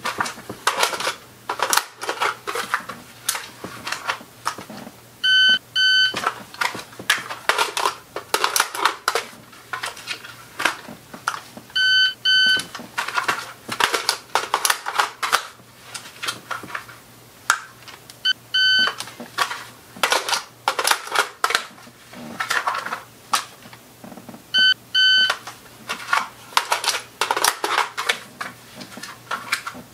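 A shot timer's short beeps, in pairs about half a second apart, repeat roughly every six and a half seconds, timing tack reloads against a 6-second par. Between the beeps come the clicks, knocks and rustle of an AR-15's magazines being pulled, inserted and stowed.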